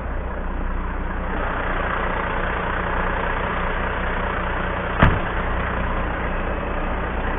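Volvo FMX 440 truck's 13-litre six-cylinder diesel idling steadily, with a single sharp knock about five seconds in.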